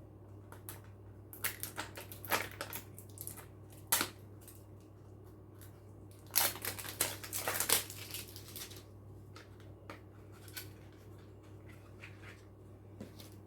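Cosmetic packaging being handled and unwrapped: irregular bursts of rustling and crinkling with sharp clicks, busiest from about six and a half to nine seconds in. A faint steady low hum lies underneath.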